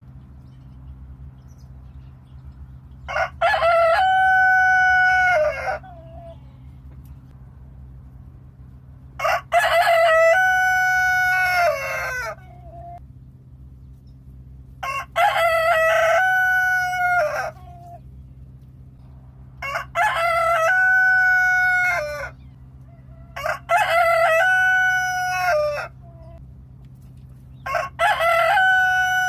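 A local-breed (baladi) rooster crowing six times, every four to six seconds. Each crow opens with a couple of short notes, then holds one long note that falls off at the end. A steady low hum runs underneath.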